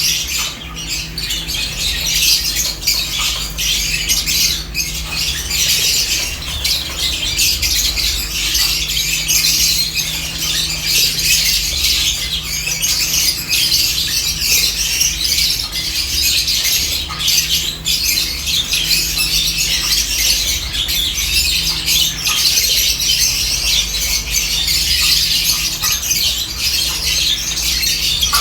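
A flock of lovebirds chattering, a dense, unbroken stream of many overlapping high-pitched chirps and squawks.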